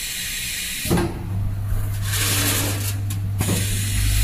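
Automatic gasket bagging machine running: a sharp knock about a second in, then a steady low hum, with a stretch of hiss in the middle and a couple of clicks near the end.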